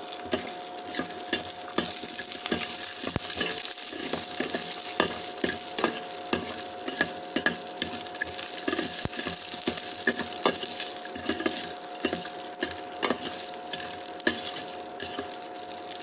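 Coriander seeds, cumin, shallots and garlic frying in coconut oil in a stainless steel pan: a steady sizzle, with frequent clicks and scrapes as the mix is stirred around the pan. The spices and aromatics are being lightly sautéed.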